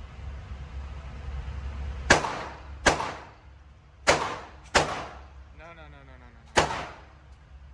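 Five gunshots at a shooting range, irregularly spaced, each with a short echo trailing off, over a steady low hum.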